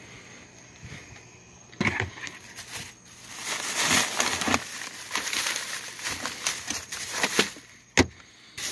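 Hands rummaging through belongings: rustling and crinkling that starts about two seconds in, with one sharp click near the end.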